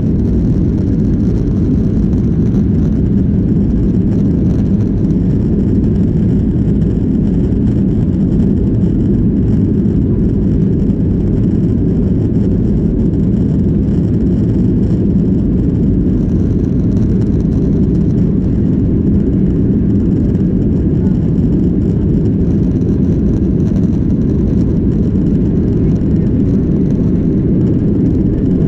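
Cabin noise of a Boeing 737-800 from a seat near the rear: its CFM56 jet engines and airflow make a steady, loud, low rumble.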